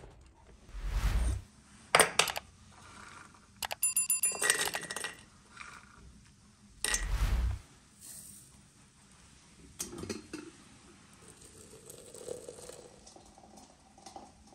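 Glass and metal kitchenware clinking and knocking as dried rosehips go into a glass teapot, with several sharp clicks, some with a brief ring. Two dull low thumps stand out, about a second in and again near the middle.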